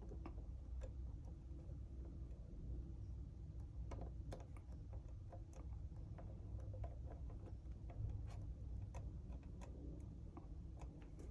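Light, irregular clicks and taps of small plastic model parts being handled during assembly, over a low steady hum.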